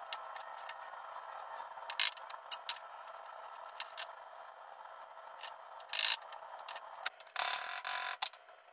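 Small clicks and clinks of hand tools and metal parts being handled while an old VW mechanical fuel pump is taken apart, over a faint steady hum. Brief noisy rushes come about 2 and 6 seconds in, and a longer one of about a second comes near the end.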